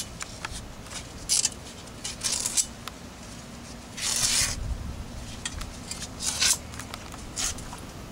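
An old car speaker being ripped apart by hand: a series of short tearing and crackling noises, the longest and loudest about four seconds in.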